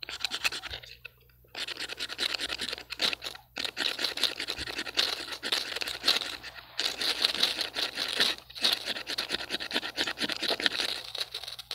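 A knife spine scraped rapidly and repeatedly along a ferrocerium rod, striking sparks down onto fatwood shavings to light them. It is a harsh, rasping scrape in several runs with short pauses between them.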